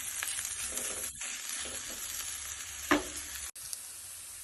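Ivy gourd slices in onion masala sizzling as they fry in a pan, with stirring. A short louder sound comes about three seconds in, then an abrupt cut leaves a steadier, quieter sizzle.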